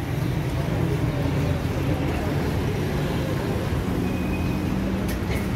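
Steady rumble of street traffic.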